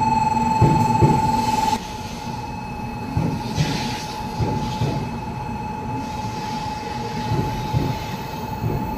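Shinkansen 700-series Hikari Rail Star train moving along the platform: a low rumble of the train with irregular knocks. A steady high-pitched tone is loud at first, then drops sharply about two seconds in and carries on faintly.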